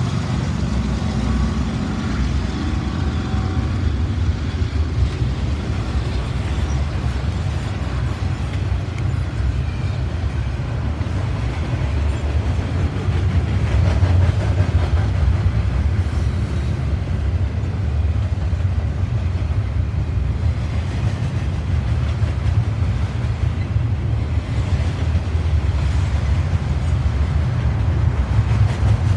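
Double-stack container train rolling past: a steady, loud rumble of the well cars' steel wheels on the rails.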